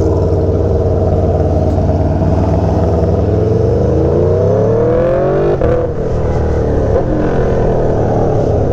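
Aprilia Tuono V4 engine running under way. About three seconds in it pulls up steadily in pitch, then drops off sharply about halfway through as it upshifts, and runs on at lower revs.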